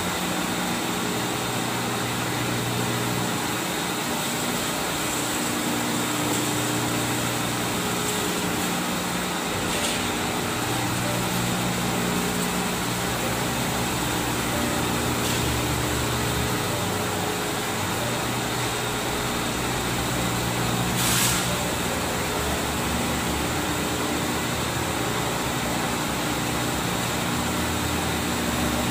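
Glass edging and polishing machine running with a steady mechanical hum and a high whine as a mirror sheet is fed through for edge grinding. A single sharp knock comes about two thirds of the way through.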